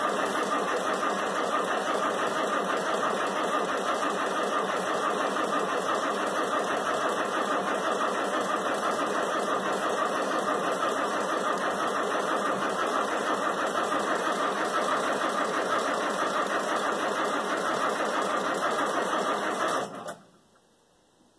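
Electric starter cranking an old wheel loader's cold diesel engine in a steady, even rhythm for about twenty seconds without it catching, then cutting off suddenly. The engine is hard to start because it is being cold-started without its block heater plugged in.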